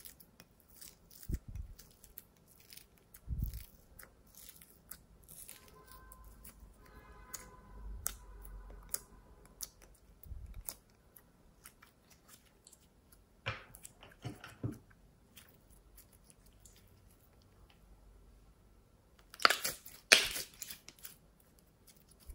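Hands squishing and pressing glitter-coated glossy slime: a scatter of small sticky clicks and crackles with a few soft thumps, and two louder squishes near the end.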